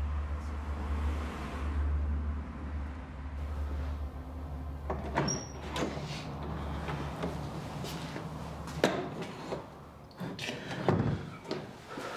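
A low steady rumble with scattered knocks and thuds of someone handling things in a kitchen; the sharpest knock comes about two-thirds through, and a cluster of knocks near the end.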